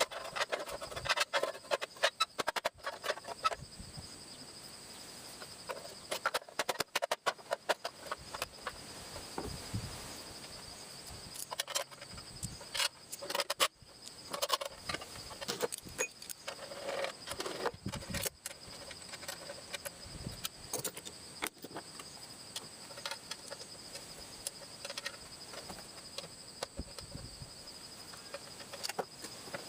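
Irregular clinking and clattering of metal tools and small engine parts being handled, over steady cricket chirping.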